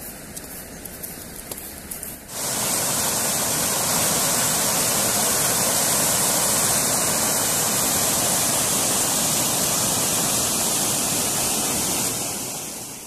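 Water pouring over a small concrete weir: a loud, steady rush that starts suddenly about two seconds in and fades away near the end.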